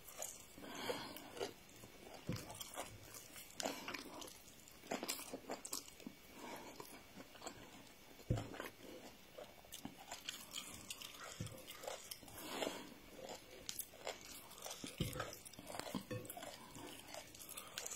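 A person eating rice and chicken by hand, chewing with the mouth close to the microphone: irregular wet smacks and short clicks, soft and uneven.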